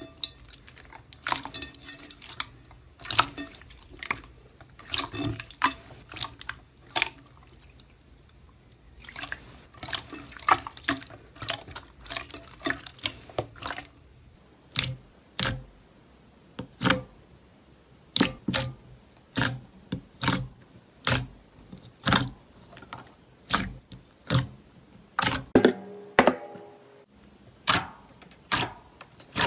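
Slime being pressed and poked by hand, making sharp wet pops and clicks. They come irregularly at first, then at a steady pace, somewhat under two a second.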